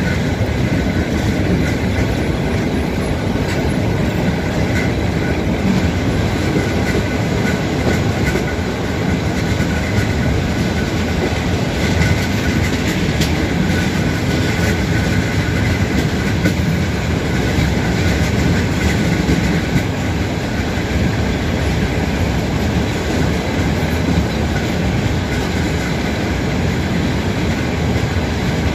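Passenger train rolling along, heard through an open carriage window: a steady rumble of steel wheels on the rails with faint rail-joint clicks.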